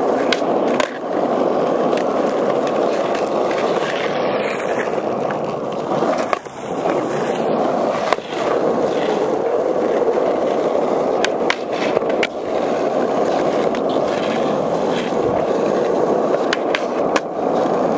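Skateboard wheels rolling over rough asphalt, a steady rumble throughout, broken by a few sharp clacks of the board against the ground: near the start, around the middle and near the end.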